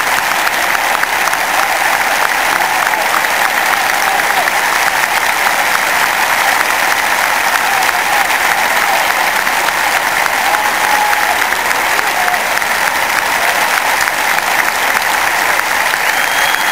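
A large stadium crowd applauding steadily, thousands of hands clapping at once in a dense, even roar of claps.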